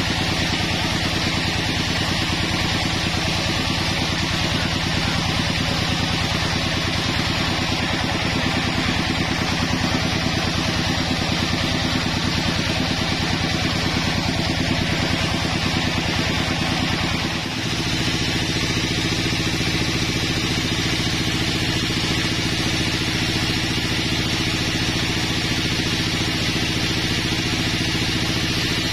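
Vertical band sawmill running steadily and sawing a pine log: a constant machine drone with a hiss of the blade in the wood. There is a brief dip past the middle, after which the drone settles at a slightly different pitch.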